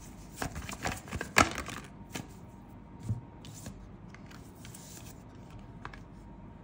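Tarot cards being handled and slid over one another on a spread: a run of crisp clicks and taps in the first two seconds, the loudest about one and a half seconds in, then a few scattered taps and a soft thud.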